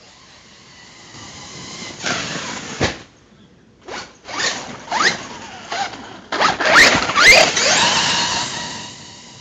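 Hobao Hyper ST Pro brushless RC truck's electric motor and drivetrain whining in short bursts that rise in pitch as it accelerates, several runs in a row with the loudest about seven seconds in, fading near the end.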